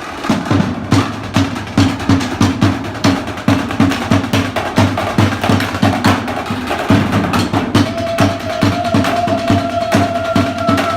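Background music with a steady drum beat; a held tone joins in about eight seconds in.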